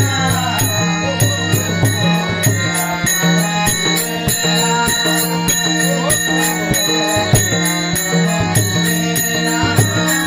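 Varkari devotional bhajan music: small hand cymbals strike in a steady, quick rhythm over a drum beat and held sustained tones.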